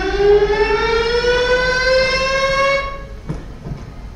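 A siren winding up, its wail rising steadily in pitch and levelling off, then cutting off suddenly about three seconds in. A single knock follows shortly after.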